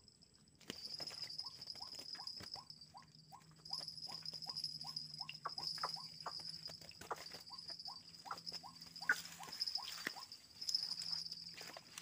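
White-breasted waterhen call played as a lure: short rising notes repeated steadily about three times a second, over a steady high insect buzz.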